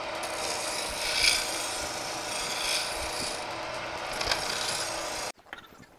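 Wood lathe turning a wooden charpai leg, a hand-held chisel cutting the spinning wood: a steady scraping cutting noise that swells a few times. It stops suddenly about five seconds in.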